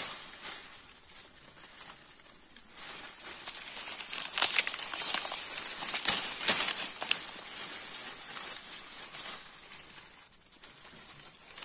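Steady high-pitched insect drone, with a run of sharp crackles and snaps about four to seven seconds in.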